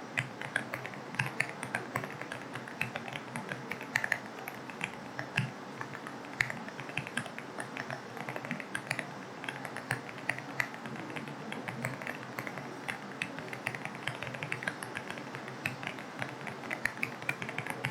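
Steady typing on an AULA F75 mechanical keyboard with linear switches: a continuous patter of quick key clicks, several a second, with the odd louder stroke. A steady hiss of rain runs underneath.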